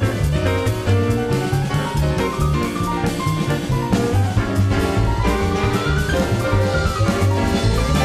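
Jazz band playing live, with a drum kit and bass under a lead line that slides up and down in pitch, recorded off an FM radio broadcast onto cassette tape.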